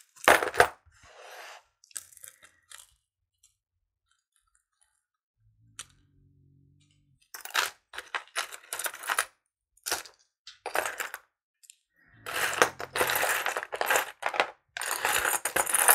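Small metal jewelry pieces clinking and rattling as they are picked through and set down, in quick clusters of clicks, with a near-silent pause of a few seconds in the first half.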